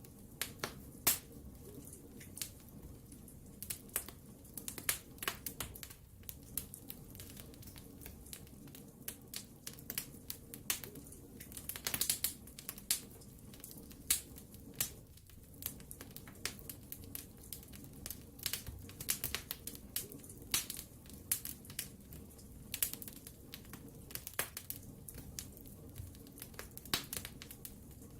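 Wood fire crackling, with irregular sharp pops and snaps several times a second over a low steady rumble of the flames.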